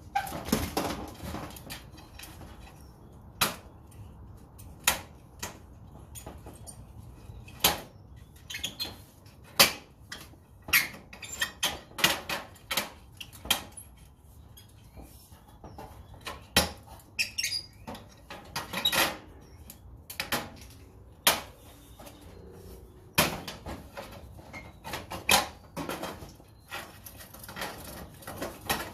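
Irregular clicks, knocks and rattles of fluorescent light fixtures being handled and taken apart for scrap, with scattered sharper strikes.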